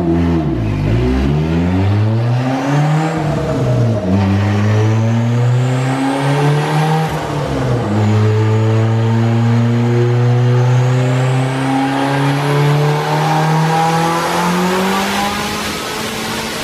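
Turbocharged car engine running on a chassis dyno with the exhaust unbolted. It revs up and down for a few seconds, then settles and climbs slowly and steadily in pitch through the second half, as in a dyno pull under load. Faint rising whistles come over it twice.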